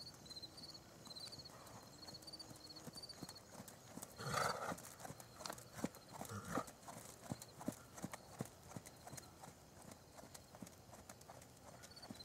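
Horse's hooves beating on sand arena footing at the canter, a run of muffled knocks that is loudest in the middle as the horse passes close. A short loud burst of noise comes about four seconds in.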